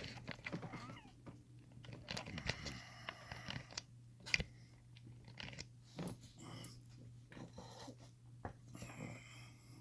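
Faint, irregular small clicks and scrapes of a wire pick and tension tool working inside a lever lock, with a few sharper clicks scattered through.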